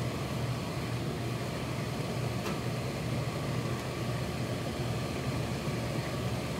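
Steady low hum with a hiss, like a fan or motor running without a break.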